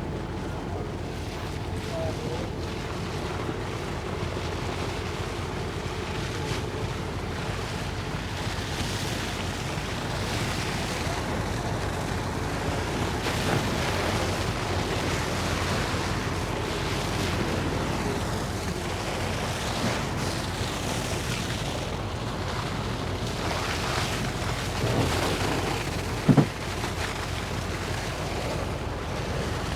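Steady rushing wash of wind and water, like surf or the sea heard from a boat, with a short loud thump near the end.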